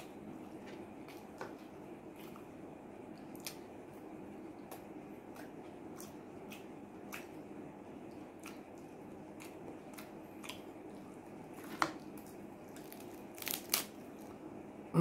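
Eating sounds: soft chewing with small scattered crunches of thick-cut potato fries and crispy fried chicken, then louder crackling near the end as the crispy fried chicken half is torn apart by hand.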